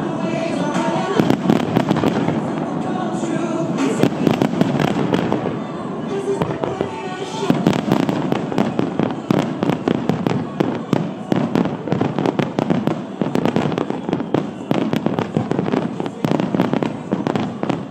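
A fireworks barrage: a dense, rapid run of bangs, pops and crackle from ground fountains and bursting shells. Music plays over it for the first several seconds, then drops out, leaving the crackle and bangs on their own.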